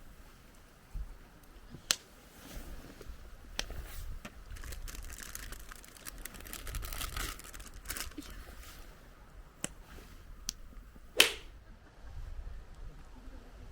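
Campfire crackling, with scattered sharp pops and clicks and a hissing spell in the middle; the loudest crack comes about eleven seconds in. A low rumble of wind on the microphone runs underneath.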